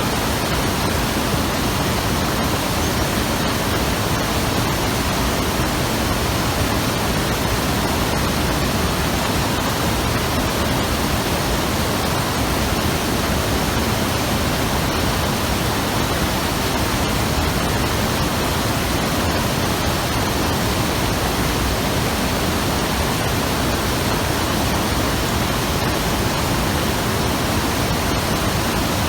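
Hayakawa river rushing in a steady, loud roar of fast-flowing water.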